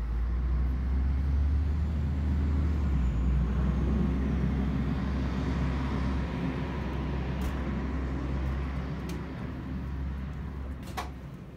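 Transtech Artic low-floor tram pulling into a stop and slowing to a halt, a low rumble that comes up suddenly, is loudest over the first few seconds, then fades. A few short clicks come near the end.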